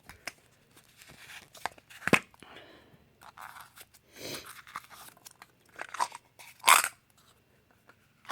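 A small plastic coin container being pried open and handled: scattered sharp plastic clicks and crackling, with a loud snap about two seconds in and another near the end.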